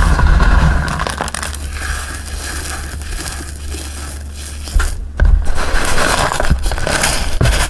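Dyed gym chalk and cornstarch being crushed and crumbled, a continuous crunching crackle with heavier presses at the start, about five seconds in and near the end.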